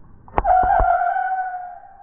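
Vulcan Saturn Missiles fireworks battery firing one shot: a sharp pop at launch, a couple of lower thumps, then a steady whistle of the missile in flight that fades over about a second.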